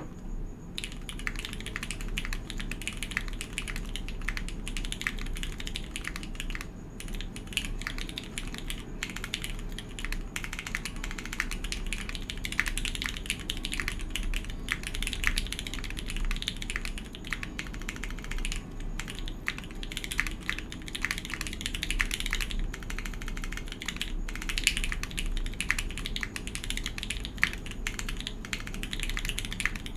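Typing on a Geonworks F2 custom mechanical keyboard: a fast, continuous run of key clacks with a few brief pauses. A steady low hum runs underneath.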